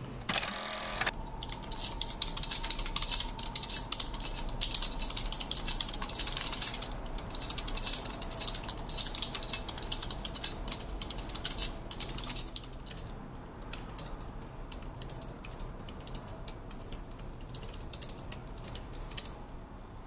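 Fast typing on an Akko 3098S mechanical keyboard with TTC Speed Silver linear switches: a dense, rapid run of key clacks that thins out near the end. A short pitched sound comes just before the typing starts.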